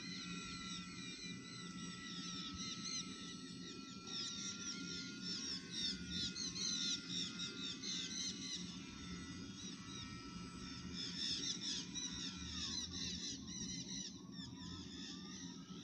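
Faint whine of a radio-controlled model airplane's engine as it flies high overhead, its pitch drifting slowly and dipping about three-quarters of the way through. Birds chirp over it in rapid runs of high notes, during the middle and again near the end.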